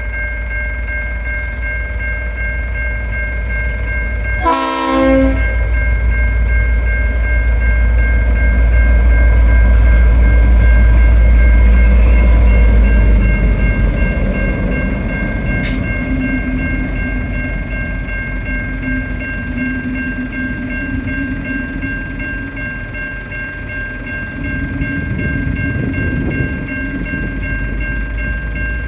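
N class diesel locomotive towing a VLocity railcar set past. The engine rumble builds to its loudest about ten to twelve seconds in, then eases off. A short sharp sound comes about five seconds in and a single click near sixteen seconds.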